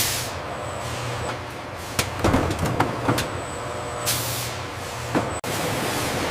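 Food-processing line machinery running with a steady hum and scattered metallic clanks, and a short hiss about four seconds in. The sound breaks off for a moment about five seconds in, then a steadier running noise follows.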